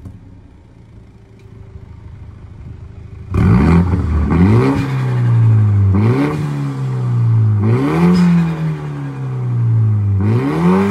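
MINI F56 JCW's 2.0-litre turbo four-cylinder, fitted with a Fi Exhaust sports-cat downpipe and valvetronic catback with the valves open, idling quietly and then revved sharply four times. Each rev climbs fast and drops back to idle, the first about three seconds in.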